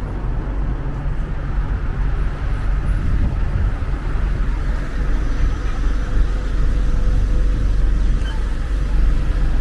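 Steady road traffic on a busy street: the low rumble of car and bus engines and tyres, growing a little louder in the second half.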